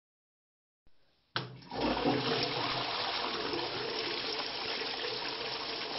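A steady rush of water coming through a walkie-talkie app transmission, starting with a click about a second and a half in.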